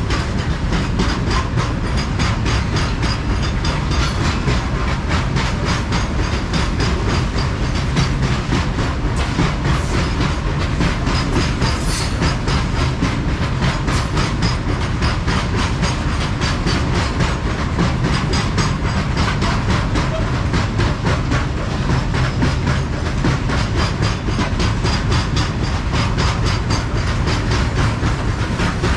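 Loaded coal freight train wagons rolling past at speed, their wheels clattering steadily over the rail joints in a fast, unbroken clickety-clack. A brief high squeak cuts through about twelve seconds in.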